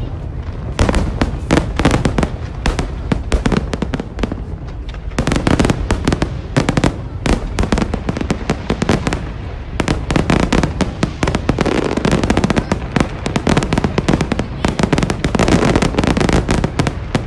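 Fireworks display: a rapid, near-continuous barrage of bangs and crackling that grows denser about five seconds in.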